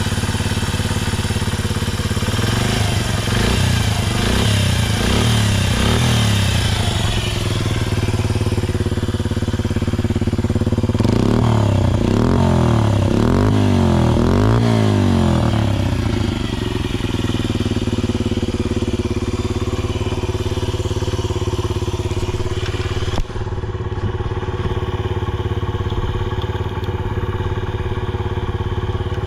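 Honda Ape 50's single-cylinder four-stroke engine running through a Racing Service ZERO aftermarket muffler. It is blipped up and down a few times early on, given a quicker run of revs around the middle, and then settles back to a steady idle, with no unusual noise according to the seller. A single sharp click comes about three quarters of the way through.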